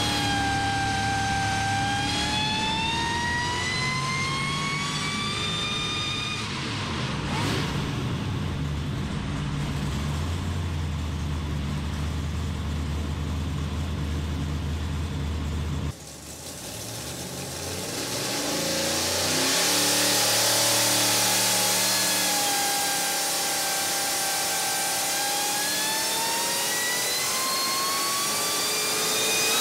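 Supercharged 454 cubic-inch Chevy big-block V8 running under load on an engine dyno during tuning pulls, its pitch climbing as the engine is let accelerate, then holding. After an abrupt break about halfway, the engine pitch dips and then climbs again near the end.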